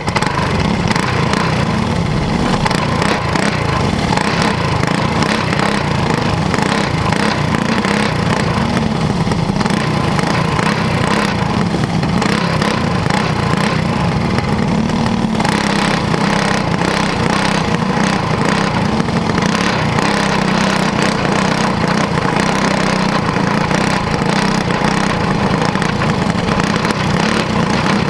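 Onboard sound of a caged dirt-track kart's small engine running steadily at low revs, with a constant rattle of the chassis and camera mount. The revs lift slightly about halfway through as the kart rolls along.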